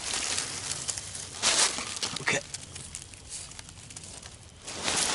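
Dry leaves, grass and twigs rustling and crackling as hands feed tinder to a freshly lit campfire, in several short bursts.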